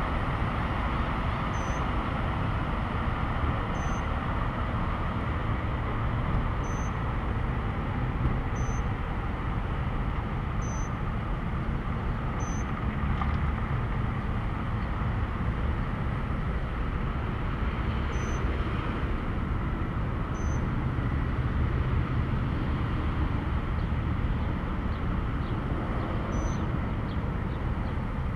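Steady low rumble of road traffic, with a short high chirp repeated every two seconds or so, pausing for a while in the middle.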